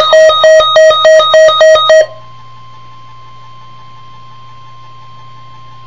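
Loud electronic emergency-alert tone from a radio broadcast, a repeating two-pitch pattern about three times a second that cuts off abruptly about two seconds in. After it, only a faint steady high tone and a low hum remain.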